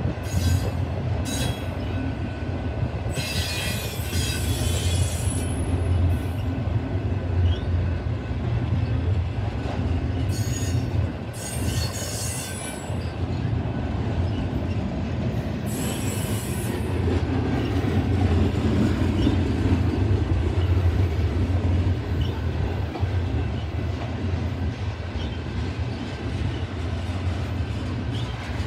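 Mixed freight train rolling past, autoracks and then tank cars: a steady low rumble of the wheels on the rails. Short bursts of high-pitched wheel squeal come about three seconds in, around eleven seconds, and around sixteen seconds.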